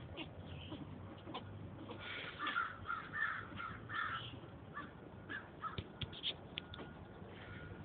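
Squirrels giving harsh, rapid alarm barks: a quick run of rasping calls about two seconds in, lasting about two seconds, with scattered sharp clicks around them.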